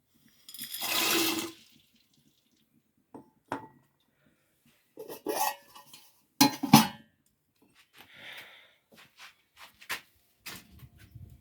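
A short rush of water about half a second in, followed by scattered knocks and clinks of pots and dishes.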